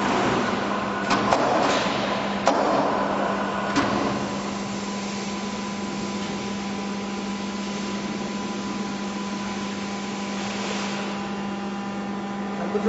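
A steady machine hum, like a small motor or fan running. Several sharp knocks and clatters come in the first four seconds.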